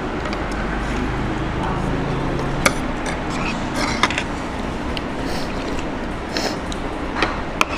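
Forks and spoons clicking a few times against plastic bowls, with eating sounds, over a steady background rumble.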